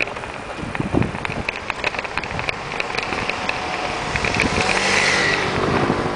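Small motor scooter approaching and passing close by. Its engine note grows about three seconds in, is loudest around five seconds, then drops in pitch as it goes past, over scattered rattling clicks.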